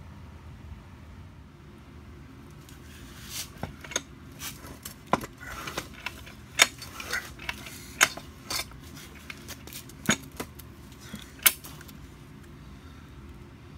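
Irregular metallic clicks and rattles as a Briggs & Stratton 4.5 hp single-cylinder mower engine is turned over by its pull-starter during a compression test, a gauge screwed into the spark plug hole. They start a few seconds in and stop well before the end.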